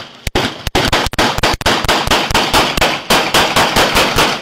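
Rapid, sustained gunfire: a long string of loud, close shots, about four to five a second.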